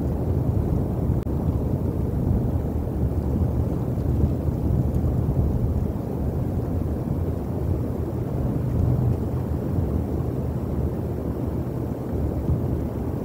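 Steady low wind noise buffeting the outdoor microphone, with no distinct events standing out.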